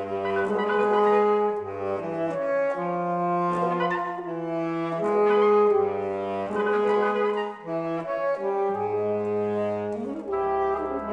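Reed quintet (oboe, clarinet, saxophone, bass clarinet and bassoon) playing in held chords over a low line that changes note every second or two, with a deeper bass note coming in near the end.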